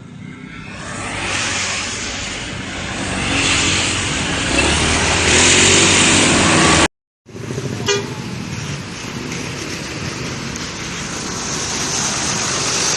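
A bus passing on the road, its engine and road noise building steadily. A hard edit cut comes about seven seconds in, followed by more steady traffic noise and a short horn toot just after the cut.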